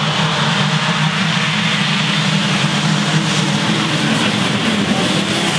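A full pack of two-stroke motocross bikes at full throttle together, accelerating away from the start in one dense, steady engine din.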